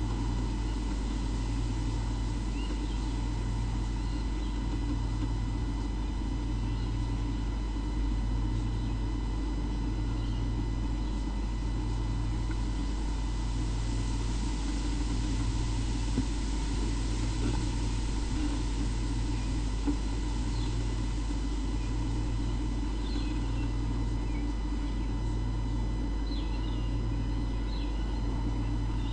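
Steady hum with a low throb that pulses on and off evenly, about every second and a half, under faint steady whining tones. A few faint, short, high bird chirps come near the end.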